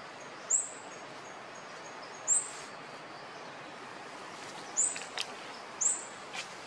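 A bird giving four short, sharp, high-pitched chirps a second or two apart, over a steady forest hiss, with fainter high chirps in between.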